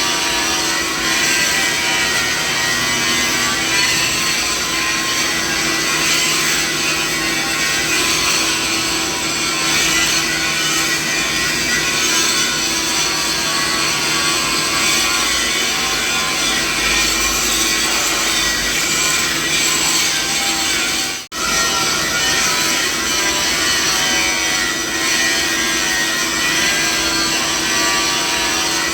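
Steady machine noise, spread from deep to high pitch with a few constant hums running through it, played as a tinnitus masking sound. It cuts out for a split second about three-quarters of the way through, then carries on unchanged.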